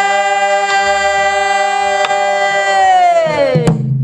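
Pansori singer holding one long sung note that slides down in pitch near the end, over a few sharp strokes on a buk barrel drum.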